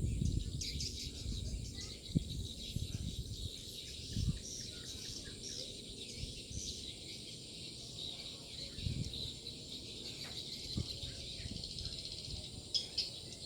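Swiftlets twittering: a dense, continuous stream of short high chirps, over a low rumble on the microphone with a few thumps.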